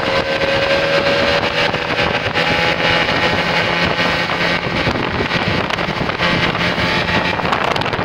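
Small Yamaha outboard motor running at speed, driving an inflatable dinghy: a steady engine drone mixed with wind buffeting the microphone.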